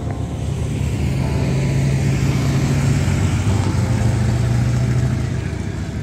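A touring motorcycle passes close by on the road with a deep engine drone. The sound builds to a peak about halfway through and then eases off.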